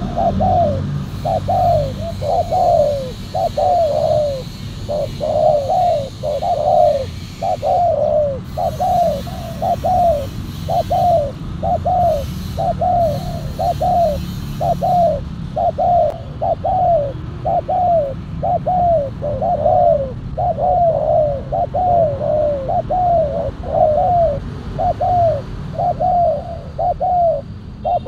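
Spotted dove cooing in a long, even series of short falling notes, about one and a half a second, over a steady low rumble.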